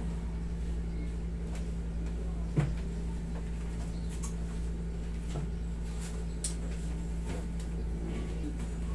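Steady low room hum with a few soft knocks and rustles from hands working on a patient lying on a padded treatment table; the loudest knock comes about two and a half seconds in.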